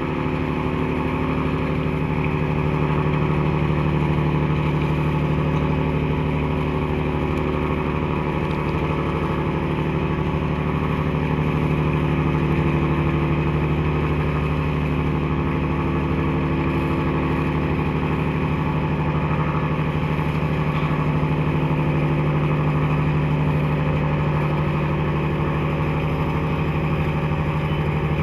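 A small cargo ship's diesel engines running steadily, a constant low drone that holds unchanged throughout.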